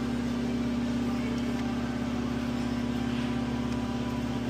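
Steady, even machine hum with a constant pitch, from background equipment in the workshop.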